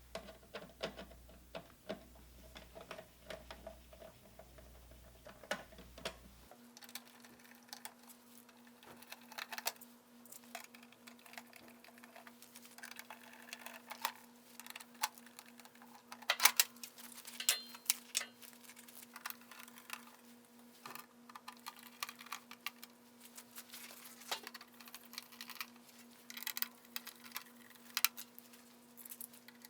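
Irregular light clicks and taps of small hand tools and screws on metal as the case screws on a QX series pump are taken out. A faint steady hum runs underneath.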